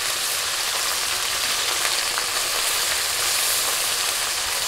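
Small mola fish frying in hot mustard oil in a wok: a steady, even sizzle just after the fish have gone into the oil.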